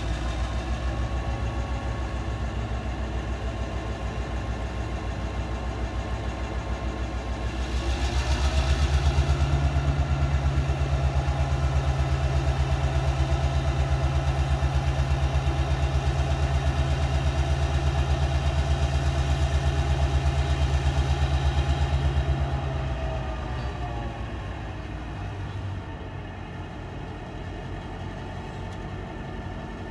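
Diesel-electric freight locomotive's engine idling, then about eight seconds in it revs up and holds a louder, higher drone for about fourteen seconds before winding back down to idle.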